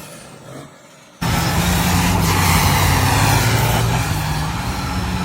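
An off-road 4x4 truck's engine running loud and steady, cutting in suddenly about a second in after a brief quieter stretch.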